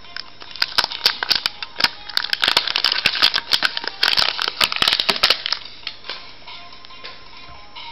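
Printed plastic shrink sleeve crinkling and crackling as it is peeled off a drink bottle by hand, from about half a second in until about five and a half seconds.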